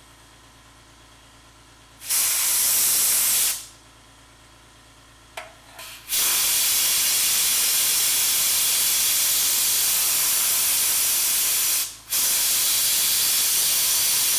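Compressed air blowing onto fresh welds in hissing blasts to cool the thin sheet metal and keep it from distorting: a short blast, then a long one of about six seconds, a brief break and another blast of about three seconds.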